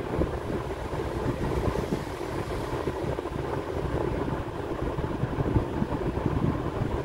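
Hands rubbing ghee into a crumbly maida-and-semolina dough mixture in a clay bowl: a continuous, uneven rubbing noise over a steady low rumble.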